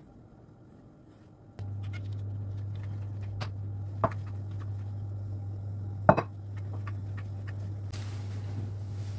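A kitchen appliance switches on about one and a half seconds in and runs with a steady low hum. Two sharp clinks of kitchenware come over it, and a soft hiss joins near the end.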